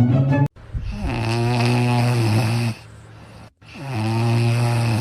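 An animal snoring: two long, low snores about a second apart, after a brief bit of music at the start.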